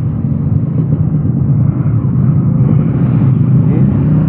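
Steady low rumble of an engine running, its level swelling slightly about three seconds in.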